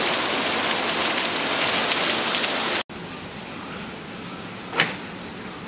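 Heavy rain pouring onto a patio and pool, a loud steady hiss. About halfway through it cuts off abruptly and a quieter rain hiss follows, heard from a doorway, with a single sharp click near the end from the handle of a sliding glass door.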